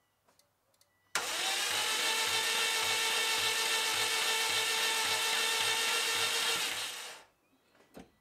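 Starter motor cranking a Subaru EJ20 flat-four for about six seconds with its spark plugs out for a compression test: a steady whine with a faint low pulse about twice a second, starting abruptly about a second in and winding down near the end. The engine spins over with no compression on the cylinder being tested.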